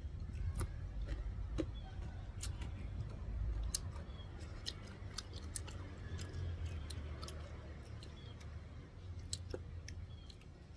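Close-up crunchy chewing of crisp young green mango, with scattered sharp clicks and the occasional scrape of a metal spoon in a ceramic bowl.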